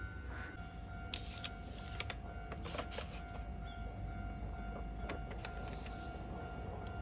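Quiet café room tone: a low rumble and a steady hum, with a few light clicks and rustles as a paper menu is handled and its pages turned.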